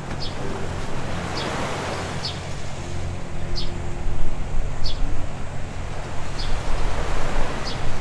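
Waves washing on a beach, swelling and easing, over a low steady hum, with soft ticks about once a second.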